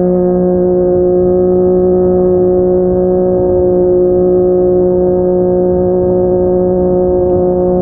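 Yamaha MT-09's inline three-cylinder engine running through a Yoshimura R55 slip-on exhaust, held at a steady engine speed while riding, its pitch rising slightly near the end.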